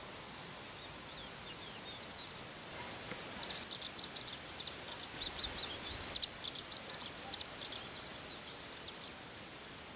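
A songbird twittering: a rapid run of high, sharp chirping notes starting about three seconds in and lasting about four seconds, over a steady outdoor background. Fainter, more distant warbling can be heard before and after.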